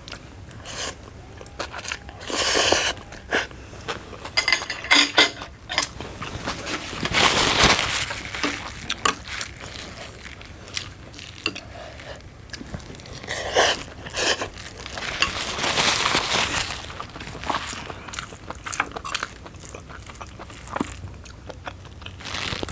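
Close-up eating sounds: utensils clinking and scraping against a dish, with chewing and crunching in irregular bursts.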